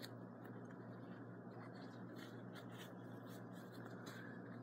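Faint scratchy rustling and light ticks of curtain fabric being tied back by hand, over a steady low hum.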